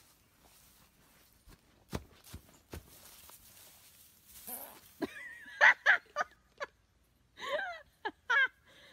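A few soft knocks, then from about five seconds in a person's voice in short repeated bursts, like laughter.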